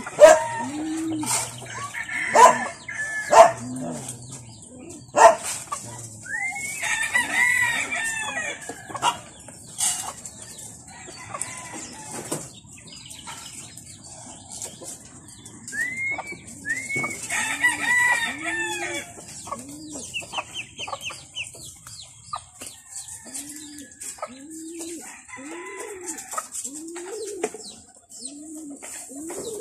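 A rooster crows twice, each crow about two seconds long, about a quarter of the way in and again just past halfway, over pigeons cooing again and again, one low coo about every second. Several loud short barks from a dog in the first few seconds.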